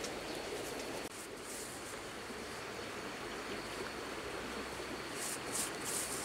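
Hands patting and brushing loose soil over a mound: soft scuffs and rustles, a few sharper ones near the end, over a steady outdoor hiss.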